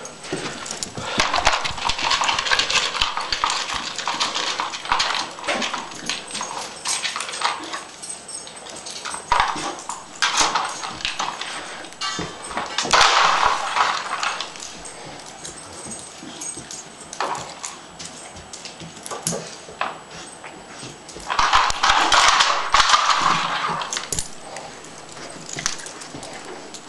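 Plastic Dog Tornado puzzle feeder clattering and clicking as a Mastiff puppy noses and paws its spinning tiers to get at the treats, in several bursts of rattling with quieter gaps between.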